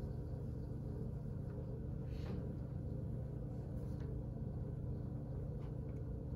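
Steady low hum of room tone, with a few faint brief scuffs from a felt eraser wiping the whiteboard and a sheet of paper being handled.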